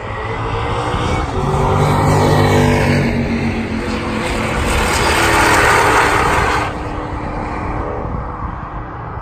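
A race car passing at speed on the straight, its engine at full throttle and growing louder to a peak about five or six seconds in. The sound then drops off suddenly to the quieter running of race cars farther away around the circuit.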